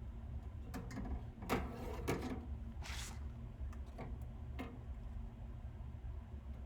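Small clicks and brief rustles of tools and a circuit board being handled during hand soldering, over a steady low hum.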